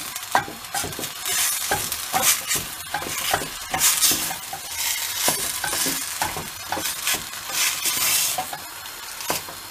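Wooden spoon stirring and scraping a grated potato mash as it fries in a stainless steel pot, with frequent knocks of the spoon against the pot and a sizzle that swells every couple of seconds as the mash is turned over.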